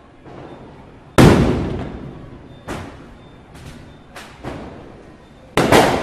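Firecrackers going off at varying distances: a loud echoing bang about a second in, three or four fainter cracks after it, and a loud double bang near the end.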